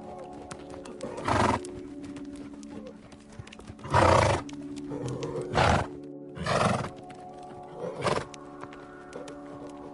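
Background music with sustained tones, over which short horse calls come about five times, each lasting about a third of a second.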